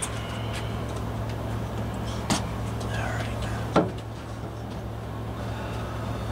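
Two sharp wooden knocks about a second and a half apart as a thin plywood furring strip is pushed up and bumped into place against the ceiling, over a steady low hum.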